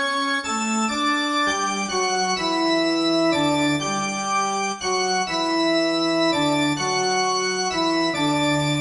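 Organ music: sustained chords held without fading, the notes moving to new pitches every second or so.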